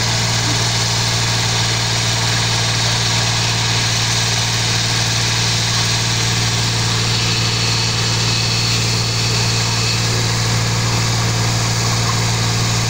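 Farm tractor engine running at a steady speed, driving a sawmill bench. It makes an unchanging low drone.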